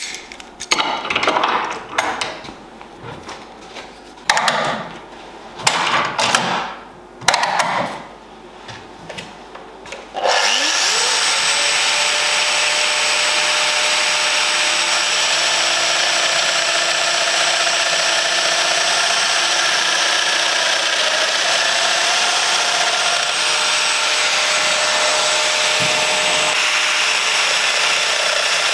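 A few short bursts of noise, then about ten seconds in a Festool Domino XL DF 700 joiner's motor spins up with a rising whine and runs steadily.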